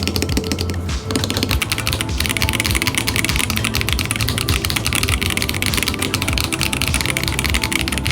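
Fast typing on an ROG Azoth 75% mechanical keyboard: a dense run of keystroke clicks over background music with a steady beat.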